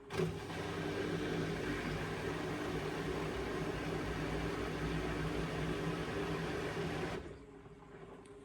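Indesit washing machine: a loud whooshing run with a low hum starts suddenly, lasts about seven seconds and stops abruptly, over the machine's quieter steady hum.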